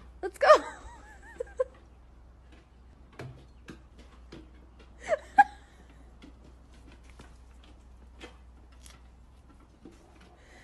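A person's short wavering laughs, about half a second in and again around five seconds in, with faint scattered taps between them.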